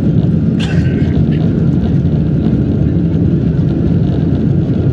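Steady, loud rumble of a Boeing 747-200 airliner's jet engines during its takeoff. A brief higher-pitched sound cuts in about half a second in.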